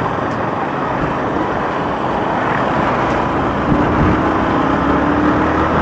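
Riding a motorcycle in city traffic: steady rush of wind and road noise with engine and traffic sound around. Past halfway an engine drone comes in and rises slightly in pitch.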